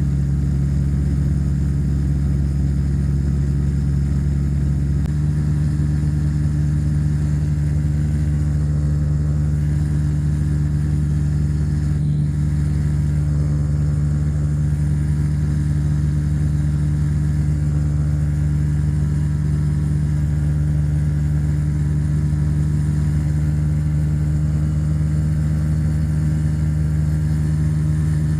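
Rotax 582 two-stroke engine and two-blade Warp Drive propeller of a Spectrum Beaver RX 550 ultralight running steadily in cruise flight, heard as a loud, even drone. Its pitch steps slightly higher about five seconds in.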